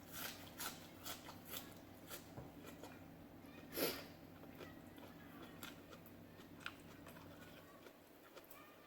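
Faint chewing and eating sounds close to the microphone: soft wet clicks and small crunches, with one louder bite a little under four seconds in.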